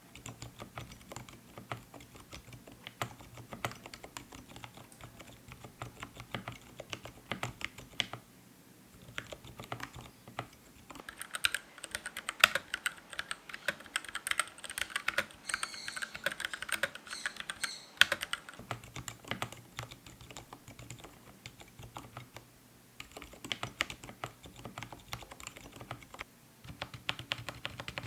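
Keychron K6 mechanical keyboard being typed on continuously in a typing sound test: a rapid run of key clicks with brief pauses, louder and brighter for several seconds in the middle.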